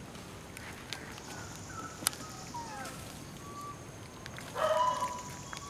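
Animal calls: several short squeaks that slide up or down, then a louder, rougher call about four and a half seconds in. A sharp click about two seconds in.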